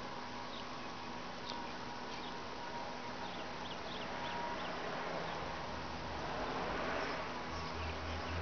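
Cat licking its paw up close: small wet tongue clicks scattered over a steady background hum, with a low pulsing rumble near the end.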